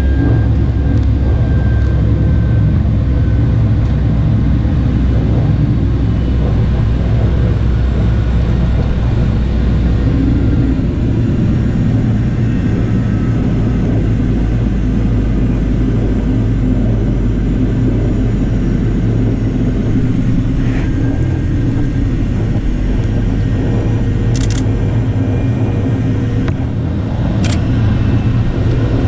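Boeing 737-700 cabin during a full-power takeoff and climb: the CFM56-7B jet engines running loud and steady over a deep rumble. The deepest part of the rumble eases about a third of the way in. Two brief clicks come near the end.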